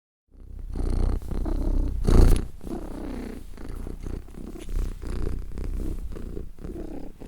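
A cat purring loudly and steadily, close up, with a louder swell about two seconds in.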